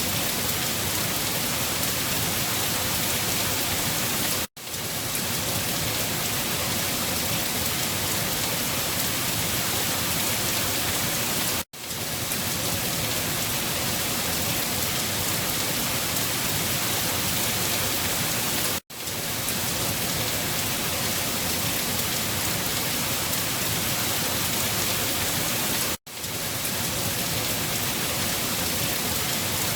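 Steady rain falling, an even hiss with no thunder. It cuts out for an instant four times, about every seven seconds, then comes straight back.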